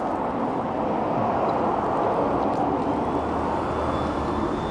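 Steady urban traffic noise: an even rumble of vehicles, swelling slightly in the low end near the end.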